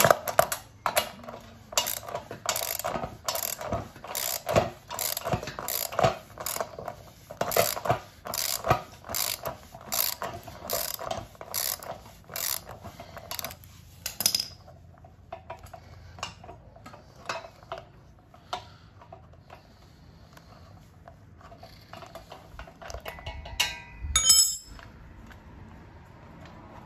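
Socket wrench ratchet clicking rapidly in stroke after stroke as a push reel mower's wheel bolt is backed out, for about fourteen seconds. After that come quieter handling clicks and a brief clatter near the end as the loosened bolt is pulled from the wheel hub.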